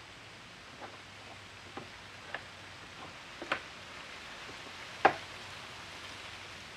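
About six sharp clicks and knocks of parts and tools being handled while setting up a rose engine lathe, spaced irregularly, the loudest about five seconds in, over a faint steady hum.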